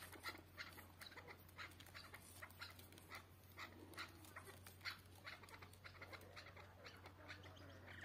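Faint short clucking notes from chukar partridges, irregular, about two or three a second, over a low steady hum.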